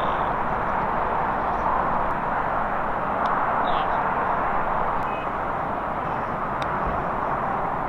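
Steady outdoor background noise, an even roar with no rhythm, with a couple of faint high chirps and a few faint thin clicks.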